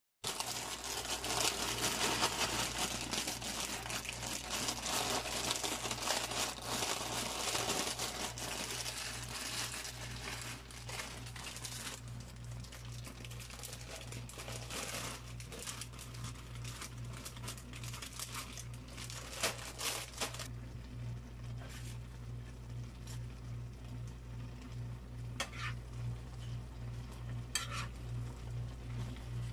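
Sliced vegetables sizzling in a hot frying pan as they are stirred with a metal spoon. The sizzle is loudest for the first dozen seconds and then softens, with scattered clinks against the pan and the crinkle of a plastic bag of noodles. A steady low hum runs underneath.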